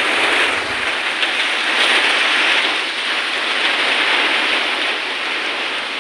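Heavy rain pouring down in a storm: a loud, steady rushing hiss that swells and eases a little.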